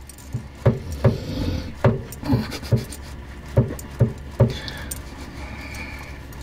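A large black dog licking a man's face and beard: a run of about eight quick wet licks and smacks over the first four and a half seconds, with the metal tags on its collar jingling lightly.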